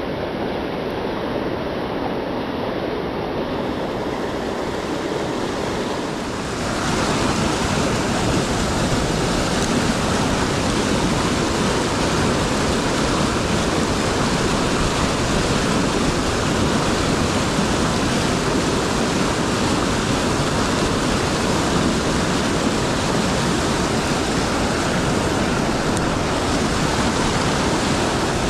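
Whitewater rapids of the South Platte River rushing among boulders, a steady dense rush of water. It grows louder and brighter about six seconds in.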